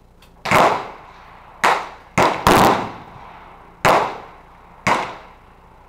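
Six rifle shots from a Smith & Wesson M&P15 Sport AR-15 (5.56 mm), fired at an uneven pace about a second apart, with two shots in quick succession a little before the middle.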